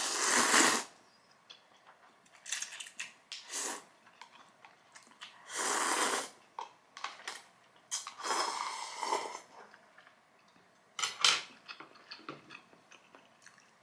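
Spicy ramen noodles being slurped and eaten, several slurps about a second long with quieter clicks and mouth sounds between them.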